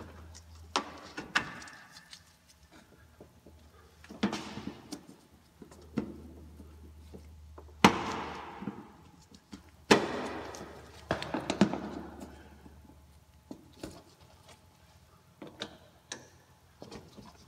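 Plastic under-engine skid plate being worked off by hand: scattered clicks and knocks as its screws and plastic retainer clips are freed and the panel is handled. About halfway through come two louder knocks a couple of seconds apart.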